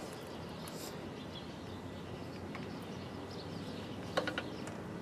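Hand grease gun with a needle tip being worked against the snow plow's frame: a few faint clicks, then a quick cluster of three metallic clicks about four seconds in, over a quiet steady background.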